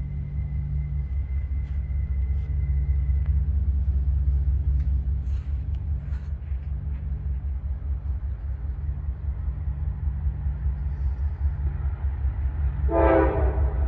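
Approaching diesel freight train, with a steady low rumble of locomotive engines and rolling wheels. Near the end the locomotive's air horn starts to sound.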